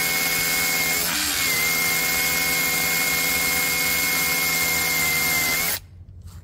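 DCK KRH20V-26 20V brushless SDS rotary hammer with a half-inch Bosch quad-tip bit, drilling into stone and running steadily with a high whine, which falters briefly about a second in. It stops abruptly near the end.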